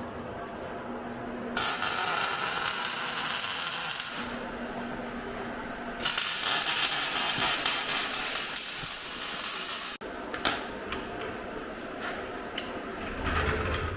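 A power tool running in two bursts, about two and a half and four seconds long, with a steady hiss in each.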